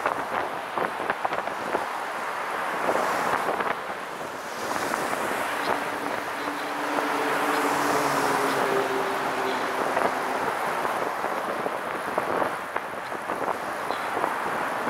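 Wind buffeting the microphone of a camera mounted on a moving recumbent trike, over road noise from the trike along a busy road. A steady hum joins in for a few seconds in the middle.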